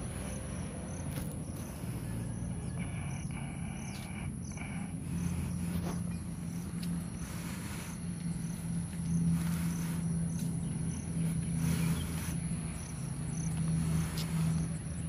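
Insects trilling steadily at a high pitch, with short high chirps repeating about twice a second, over a low steady hum that grows louder partway through.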